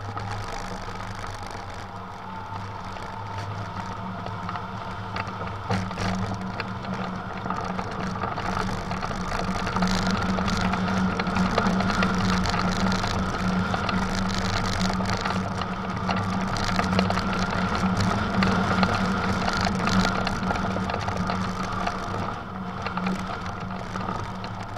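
Wind rushing over a hang glider in gliding flight, with a steady low hum and a few light rattles from the glider; it grows louder from about ten seconds in as the glider comes down on its landing approach.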